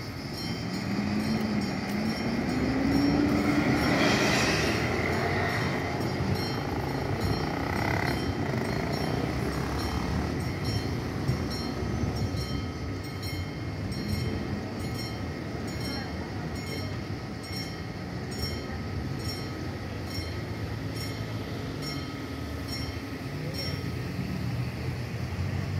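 Level-crossing bell ringing over and over in a steady rhythm while the crossing's barrier arms lower and close. A road vehicle passes over the crossing near the start, its engine note rising.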